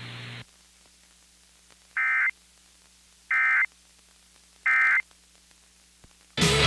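Emergency Alert System end-of-message data signal on weather radio: three short, identical buzzy warbling tone bursts about a second and a half apart, marking the end of the severe thunderstorm warning. Steady radio hiss cuts off about half a second in, and music starts near the end.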